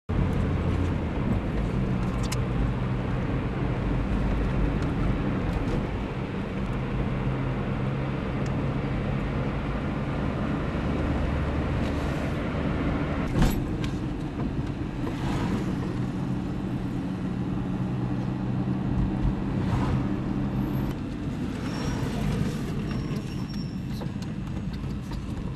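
A car driving, heard from inside the cabin: a steady engine drone over tyre and road noise, with a sharp click about thirteen seconds in.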